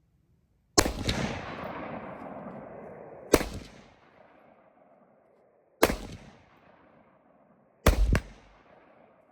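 Gunshots at a shooting range: four sharp reports roughly two to two and a half seconds apart, the last a quick double crack. The first shot trails off in a long echo.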